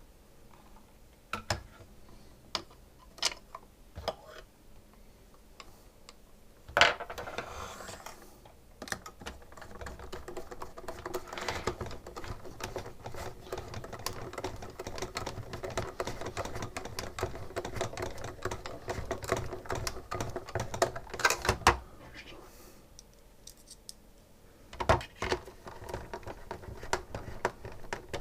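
Irregular clicking, tapping and rattling of SodaStream parts being handled and fitted during repair work, with a sharp knock about seven seconds in. A dense run of clicks follows, then a short lull and more clicks near the end.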